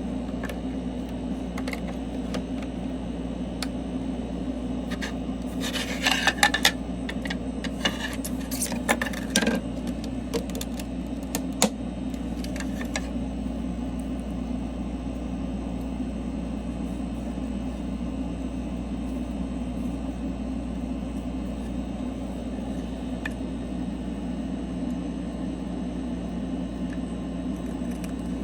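Steady low hum of workbench machinery running. Between about six and thirteen seconds in there is a run of short scrapes and clicks, like tools working on a screen.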